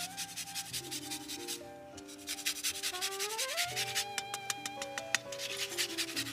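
Lemon rind being grated on a fine zester in quick rasping strokes, with a short pause about two seconds in. Background music with held, gliding notes plays underneath.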